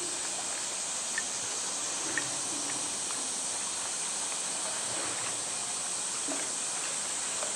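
Water sloshing and lapping around a swimming polar bear pushing a plastic cone through the pool, over a steady high hiss, with a few faint short ticks.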